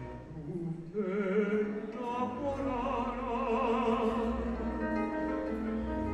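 Live ranchera ballad: a male singer holds long notes with a wide vibrato over a small band of acoustic guitars and keyboard.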